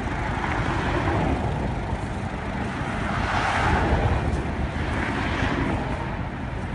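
Freeway traffic rushing past, one vehicle swelling loudest about three to four seconds in and then fading.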